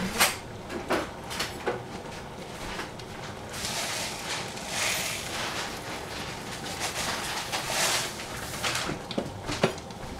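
Paper sugar bag rustling and crinkling while a tablespoon of sugar is scooped out, with light clinks of a metal spoon against a stainless steel saucepan near the start and again near the end as the sugar is stirred into the milk.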